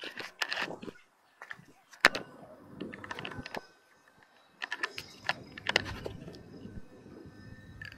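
Hands handling an FPV quadcopter and its onboard action camera: irregular close-up clicks, taps and rubbing against the camera body, with one sharp click about two seconds in. The motors are not running.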